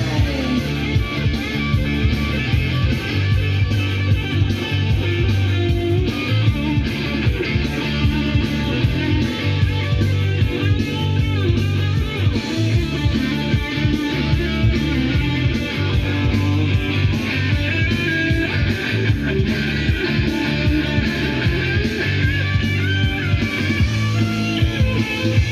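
Guitar-led rock music playing from a vinyl record on a Denon DP-45F turntable fitted with a Shure M97xE cartridge, heard through the hi-fi.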